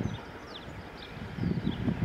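Wind buffeting the microphone in uneven gusts, strongest near the start and again in the second half, with a few short, faint bird chirps above it.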